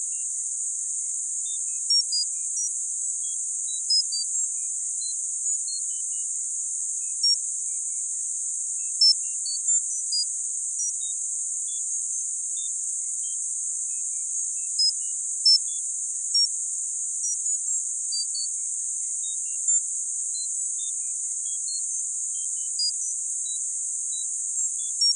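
Tinnitus sound-therapy track: a steady high-pitched hiss of narrow-band noise, with short high beeps at random pitches scattered through it at irregular moments, about two a second.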